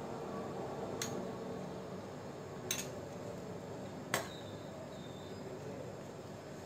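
Three light clinks of kitchen utensils against glassware and steel bowls, the last one ringing briefly, over a faint steady hum.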